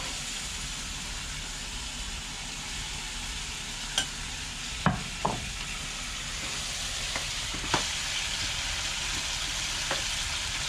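Curry with mango and saijan (drumstick) pieces frying in a pot with a steady sizzle. A spoon knocks against the pot about five times as it is stirred.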